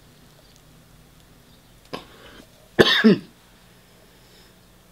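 A man coughs once, sharply, about three seconds in, with a shorter throat sound about a second before; otherwise quiet room tone.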